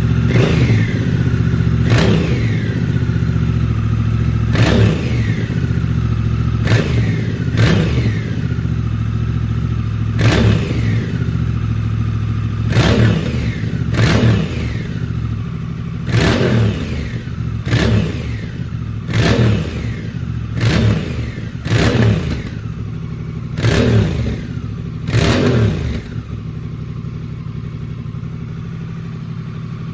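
Honda Rebel 1100's parallel-twin engine through a Coffman's Shorty slip-on exhaust, blipped about fifteen times in quick, sharp revs that each fall back, with echo off the garage walls. Near the end it settles to a steady idle.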